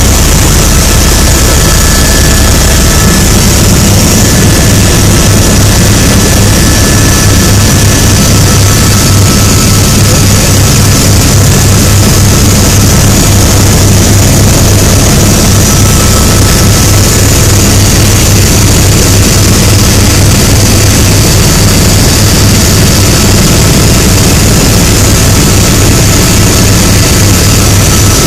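Helicopter engine and rotor heard from inside the cabin in flight: a loud, steady drone with a faint high whine over it.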